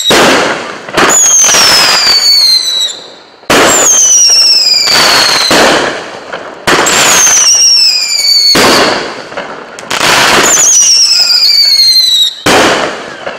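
A 12-shot consumer fireworks cake firing shot after shot, about one every two to three seconds. Each shot gives a loud whistle that falls steadily in pitch, over the noise of the launch and the burst.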